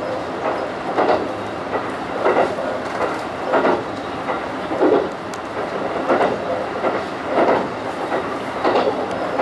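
Train wheels clattering over rail joints: a clickety-clack that comes about every 1.3 seconds over a steady running rumble, heard from inside the front cab of a diesel railcar.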